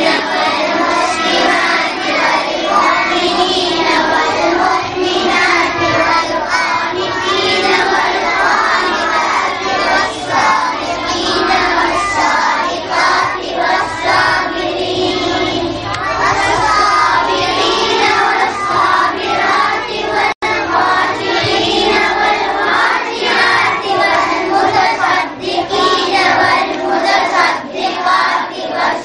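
A group of children reciting the Quran aloud together in Arabic, a continuous chanted unison recitation. There is a momentary cut-out about 20 seconds in.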